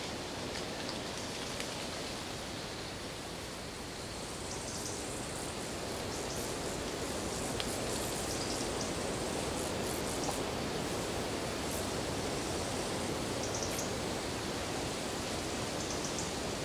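Autumn forest ambience: a steady rushing hiss that dips slightly a few seconds in and then swells and holds, with scattered faint ticks above it.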